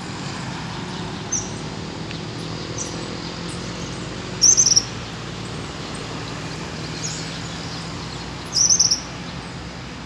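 Double-collared seedeater (coleiro) giving short, high song bursts: two loud ones about halfway through and near the end, with a few fainter chirps between, over a steady low hum.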